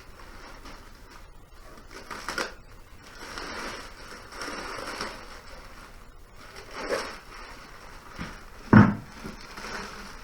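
Packing material rustling and crinkling in a few bursts as a part is unwrapped from its box, with one sharp thump near the end.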